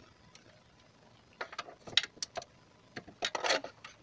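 Click-type torque wrench, set to 11 N·m, going round the automatic transmission oil pan bolts: a few sharp metallic clicks about a second and a half in and a quick cluster of clicks near three seconds. The wrench clicks as soon as it is put on each bolt, showing the bolt is already at torque and none was left loose.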